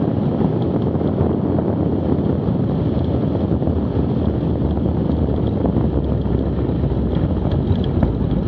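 Wind rushing over the microphone together with the low rumble of a Cessna 182 Skylane rolling out on a grass runway and slowing after landing. The low rumble grows heavier near the end.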